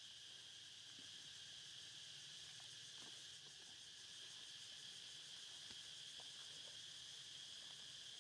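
Faint, steady high-pitched drone of insects.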